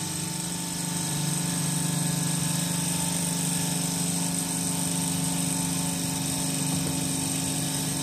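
SKM chiller running steadily on compressor 1: an even machine hum with a constant low drone and a faint high whine. The chiller is running with low suction pressure, which the technician puts down to a low refrigerant charge from a gas leak.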